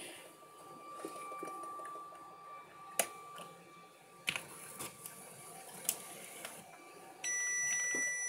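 Keys clicking on a Texas Instruments Silent 700 TravelMate 1200 data terminal's keyboard, a handful of separate presses. About a second before the end, a steady electronic beep starts.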